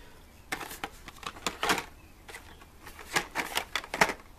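Hot Wheels cars on cards in plastic blister packs clicking and clattering against each other and the plastic tub as they are flipped through by hand: irregular sharp clicks and rustles, loudest about three and four seconds in.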